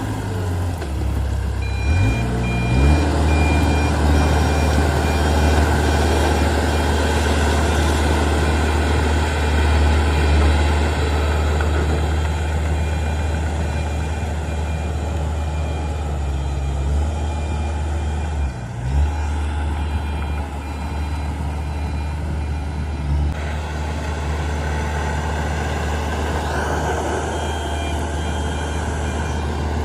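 Heavy diesel engine running steadily under load, picking up about two seconds in and dropping briefly about two-thirds of the way through. A reversing alarm beeps over it at times.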